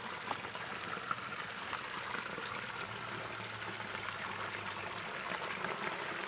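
Shallow stream water running and trickling steadily, with a couple of small splashes as hands feel about underwater.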